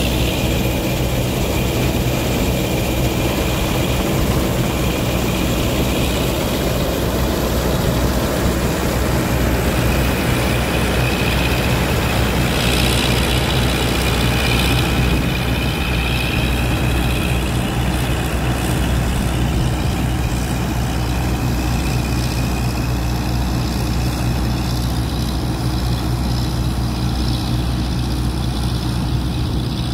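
Massey Ferguson 86 combine harvester running steadily while cutting barley: a low, even engine note with a high whining tone above it that wavers slightly in pitch. The combine moves past and away, and the high whine thins out over the second half.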